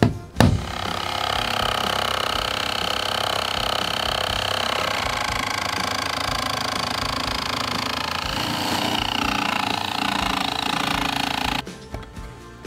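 A single hammer blow just after the start, then a jigsaw running steadily as it cuts through a wooden camper floor panel for about eleven seconds, cutting off sharply near the end.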